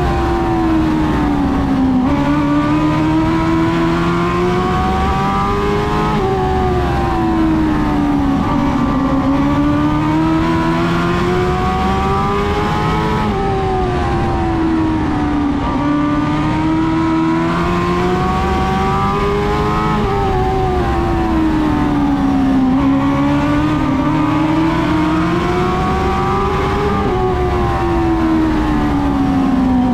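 Dwarf race car's engine running hard on an oval track. Its pitch climbs steadily for several seconds down each straight, then drops back as it lifts for the turn, repeating about every seven seconds.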